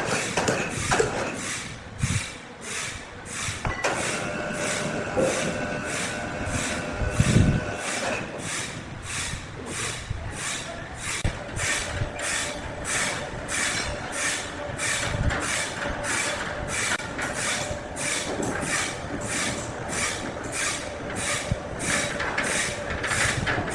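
Sawmill machinery running with a regular clacking beat of about two strokes a second. A whine of several steady tones comes in about four seconds in and stops around eight seconds, and a single steady tone sets in near the middle.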